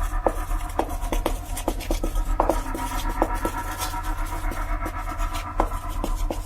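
Irregular scratching and scraping, a few short strokes a second, over a steady low hum.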